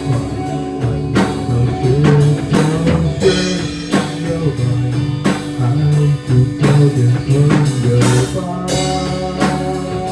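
Instrumental rock band passage: guitar over bass and a drum kit keeping a steady beat, with a cymbal swell about eight seconds in.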